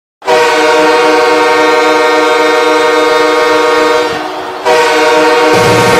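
Hockey goal horn blasting loud, steady chord-like tones, easing off for a moment about four seconds in and then sounding again. A bass-heavy electronic track comes in under it near the end.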